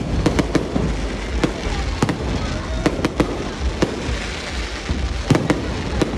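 Fireworks display: aerial shells bursting in an irregular run of about a dozen sharp bangs, some in quick clusters, over a steady low rumble and crackle.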